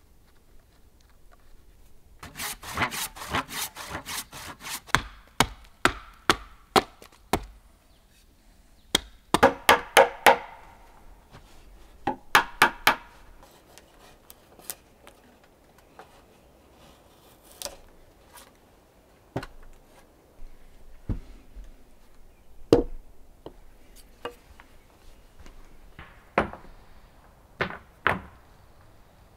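Hand tools working wood: several bursts of quick scraping and cutting strokes into the wood, with sharp single strikes between them. Later come scattered single knocks and taps on wood.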